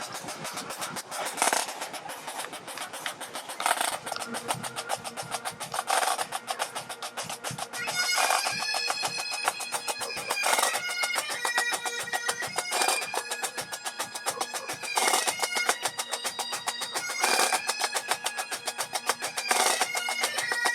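Pipe band starting up: snare drums play a fast roll and beat. The Highland bagpipes' drones come in about four seconds in, and the chanter melody starts about eight seconds in over the steady drones and drumming.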